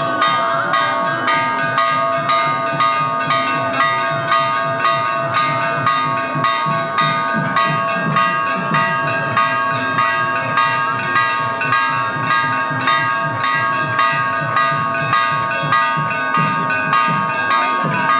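Large temple bell rung continuously and fast, about two to three strikes a second, its tones ringing on between strikes.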